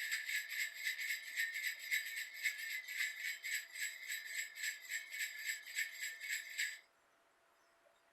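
Small jingle bells shaken in a steady rhythm, about three or four shakes a second, that cut off suddenly near the end.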